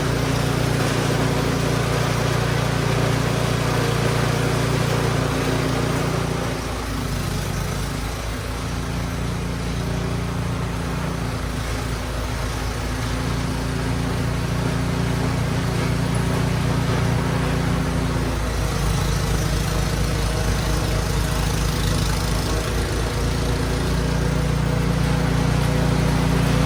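Husqvarna gas snow blower engine running steadily under load, its note dipping briefly a few times as it works through deep snow.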